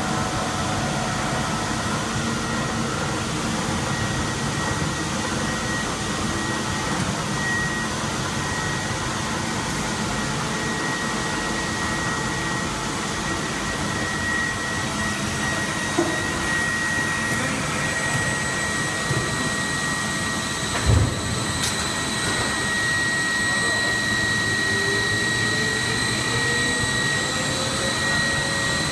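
Plastics compounding machinery running: a Banbury mixer line feeding a twin screw force feeder and single screw extruder, giving a steady machine drone with a thin high whine. A sharp knock about 16 seconds in and a heavier thump about 21 seconds in; in the last few seconds a tone slowly rises.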